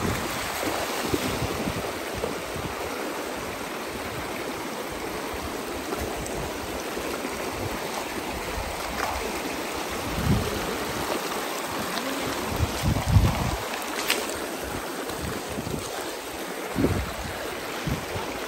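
Steady rush of stream water flowing. A few short low thumps come in the second half.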